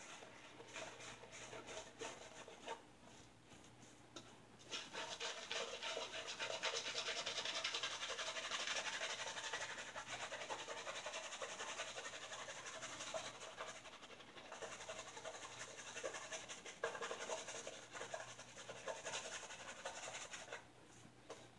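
Raven Brush Works shaving brush swirling and scrubbing shaving-soap lather on a bearded face, a soft wet scrubbing that grows louder about five seconds in and drops away just before the end.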